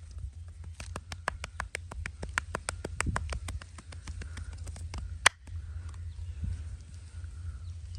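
Rapid run of sharp hand slaps from a massage, about six a second and strongest in the middle, ending a little after five seconds in one loud, sharp crack.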